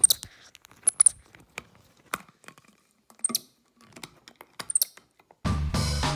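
Plastic bottle and cap handled and mouthed by a capuchin monkey: scattered sharp clicks and taps, roughly a second apart. Music starts near the end.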